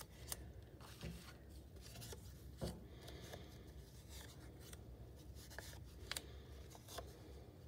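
Faint rustling and scattered light taps of small paper squares being handled and set down one by one on a tabletop.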